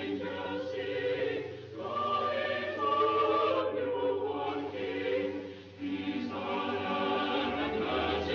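A choir singing slow, held notes in phrases, with short breaths between phrases.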